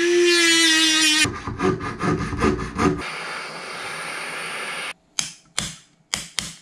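A jeweller's handheld rotary tool spins up with a rising whine and runs for about a second while finishing a ring. Rhythmic scraping strokes follow, then the steady hiss of a small butane torch. A few sharp clicks come near the end.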